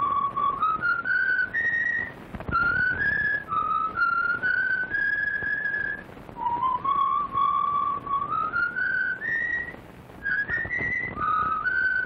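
A tune whistled solo: a clear single line that climbs step by step in short phrases, with the phrase starting over from the low note about halfway through, over the hiss of an old film soundtrack.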